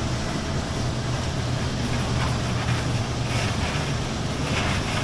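Oshkosh HET 8x8 heavy wrecker's diesel engine running steadily as the truck moves along, a low even drone with no revving.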